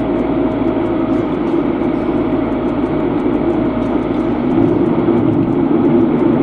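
Steady road and engine noise inside a moving car's cabin, growing a little louder about four and a half seconds in.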